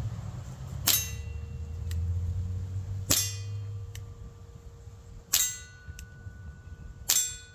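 Four shots from a Barra Schofield CO2 air revolver, about two seconds apart. Each is a sharp crack followed by the ringing ping of the pellet or BB striking a steel target.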